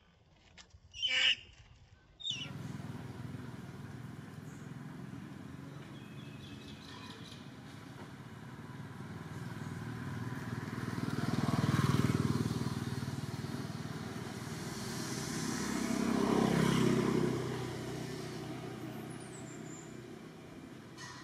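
A macaque gives a short, loud screech about a second in. Then a steady outdoor din with motor vehicles passing, swelling and fading twice, once near the middle and again a few seconds later.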